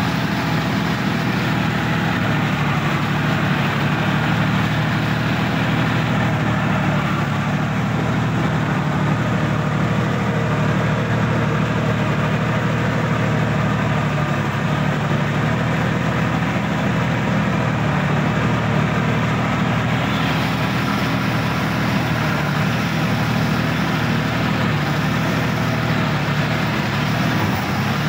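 Sonalika tractor's diesel engine running steadily at an even speed, heard close up from the driver's seat as the tractor works through a muddy, flooded paddy field.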